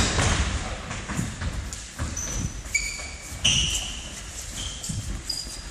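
Indoor football play: several short, high-pitched squeaks of sports shoes on the hall floor, among scattered thuds and shuffling of feet and ball.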